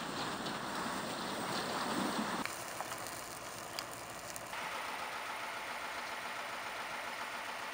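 Heavy truck engines running steadily, with wind noise; in the middle a few sharp crackles from an open fire.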